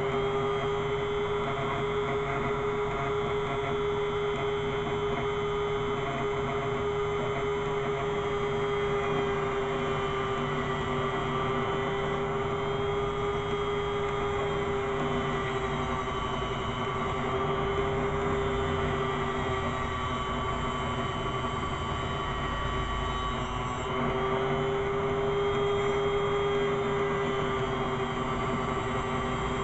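Electric grinder running steadily while the steel blade of a cut-down butcher knife is ground on it, a steady whine over grinding hiss. The whine sags slightly in pitch now and then as the blade is pressed in.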